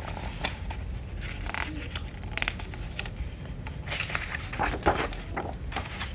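Paper rustling and crinkling as the pages of a large picture book are turned and handled, with a few light taps and scrapes.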